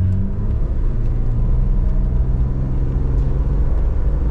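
Car exhaust and engine drone heard from inside the cabin while cruising, a steady low note that drops a little in pitch just after the start and then holds. It is the exhaust noise the driver dislikes and wants much quieter.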